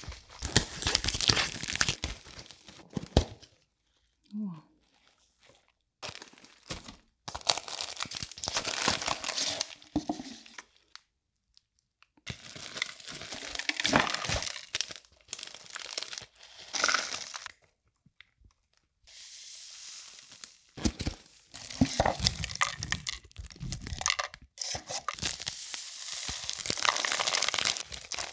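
Plastic and foil packaging of instant cup noodles crinkling and tearing as it is opened: the plastic wrap around the glass noodles and the foil seasoning sachets. The sound comes in bursts with short pauses between them.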